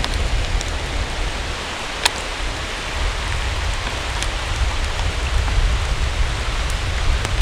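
Steady hiss of rain and running creek water, with a low rumble of distant thunder underneath that swells toward the end, and a sharp click about two seconds in.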